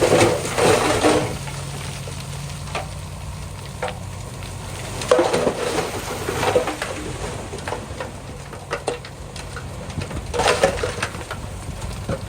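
Small bulldozer's diesel engine running steadily, with crunching, rattling bursts of stone and soil being pushed, three times, and scattered clicks of stones.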